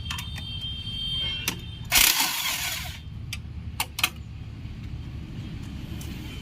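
Metal clinks and knocks of tools working on a tractor's hydraulic pipe fittings, over a steady low rumble, with a hiss lasting about a second, about two seconds in.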